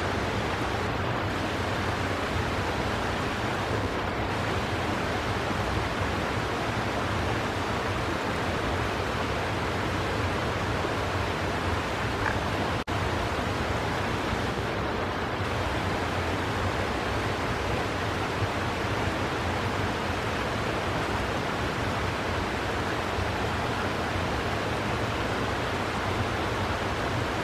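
Shallow rocky creek running over a riffle: a steady, even rush of flowing water that breaks off for an instant near the middle.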